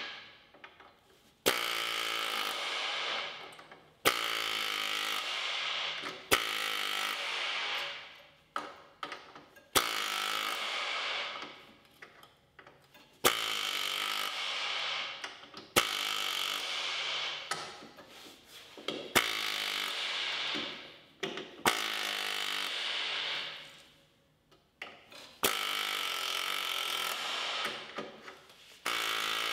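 Pneumatic air chisel hammering against rusty sheet steel in about a dozen bursts of two to three seconds each, with short pauses between them. It is cutting away the leftover strip of old floor pan from the chassis lip.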